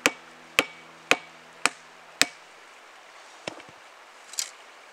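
Chopping blows of a hand tool into wood, about two a second, five strikes in a row, followed by two lighter knocks.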